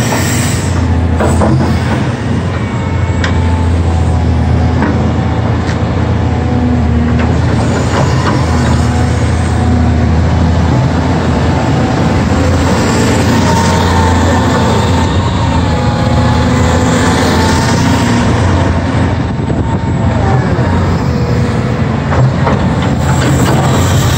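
Caterpillar 330D tracked excavator running, its six-cylinder diesel engine humming steadily while the hydraulic pumps whine, rising and falling in pitch as the boom and bucket are worked. A few sharp knocks sound in the first several seconds.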